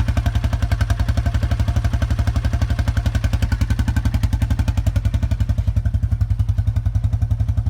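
A small engine running steadily, with an even, rapid beat of about fourteen pulses a second.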